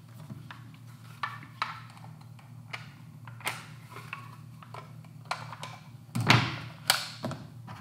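Irregular clicks and knocks of a polymer Magpul PMAG Gen 3 rifle magazine being worked by hand as its floorplate is swapped for a Ranger plate. The loudest knocks come a little after six and seven seconds in.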